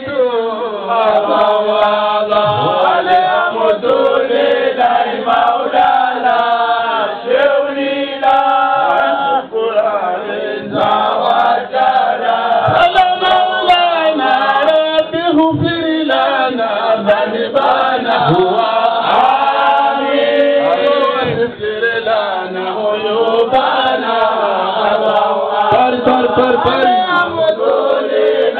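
A group of men chanting a devotional mawlid chant together in unison, the voices held and sliding between notes without a break.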